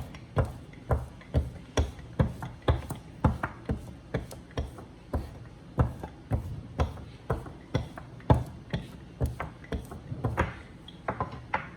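Wooden rolling pin rolling out pastry dough on a board, knocking sharply about twice a second in a steady rhythm.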